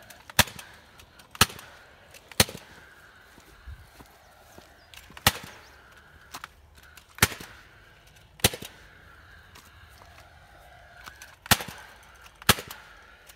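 KMR cordless gas stapler firing fencing staples: eight sharp shots. The first three come about a second apart; the rest follow at uneven gaps of one to three seconds.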